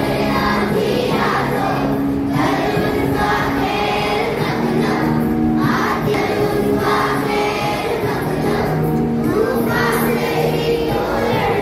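A group of children singing a devotional prayer song together, many voices holding long notes without a pause.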